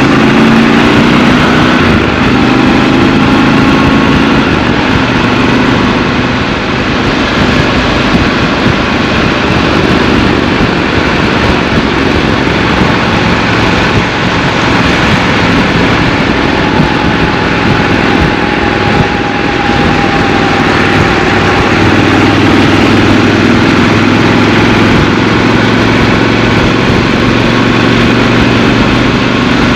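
Triumph Scrambler 1200 XC's 1200 cc parallel-twin engine running while riding, its pitch shifting gently up and down with the throttle, over a steady rushing noise.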